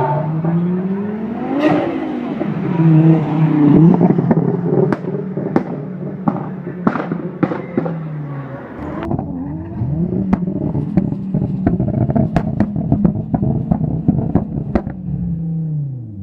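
Tuned, turbocharged Ford Focus RS engine revving up and dropping back, then held on a steady note while the exhaust lets off a rapid string of sharp bangs and pops: anti-lag backfire. The revs fall away at the end.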